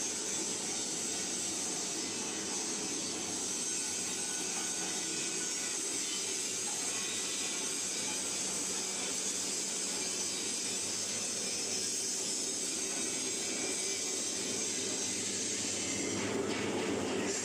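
Mini concrete mixer running: a steady mechanical noise with a hiss, briefly louder about a second before the end.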